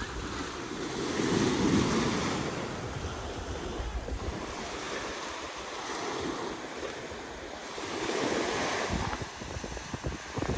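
Small waves breaking and washing up on a sandy beach, the surf swelling and fading several times, with wind rumbling on the microphone.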